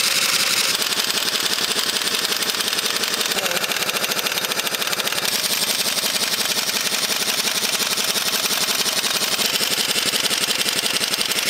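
Large pneumatic impact wrench running in reverse on a stuck road-wheel hub nut: a loud, rapid, continuous hammering of impacts that does not let up.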